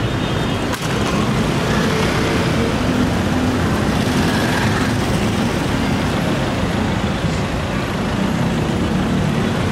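Steady, loud street traffic noise, with a motor vehicle's engine running close by.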